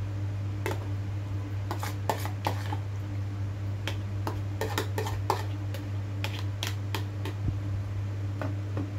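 A spoon scraping and tapping against a plastic bowl and plate, making irregular light clicks in several short clusters, over a steady low hum.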